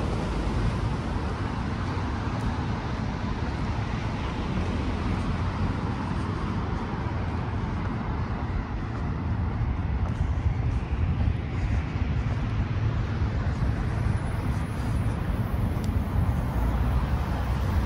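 Steady rumble of vehicle traffic, heaviest in the low end, with no clear rise or fall.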